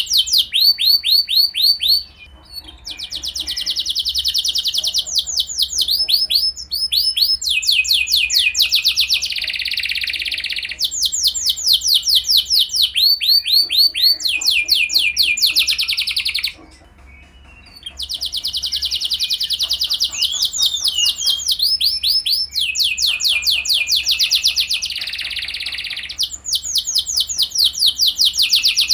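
Domestic canary singing a long trilling song: runs of fast repeated notes, changing from phrase to phrase, with two short pauses. It is a 'pancingan' song meant to set other canaries singing.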